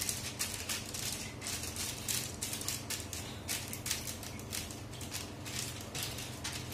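Sheet of paper rustling and crinkling under a gloved hand as it is rubbed and pressed flat on a countertop, in quick irregular swishes, over a steady low hum.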